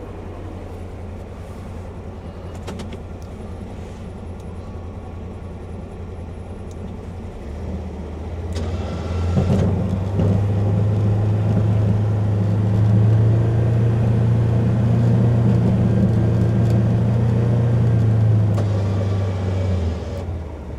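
Polaris Ranger XP 1000 Northstar's twin-cylinder engine running in its enclosed cab while plowing heavy wet snow: a steady low hum that grows louder about eight seconds in and holds for about ten seconds as it works, then eases off near the end.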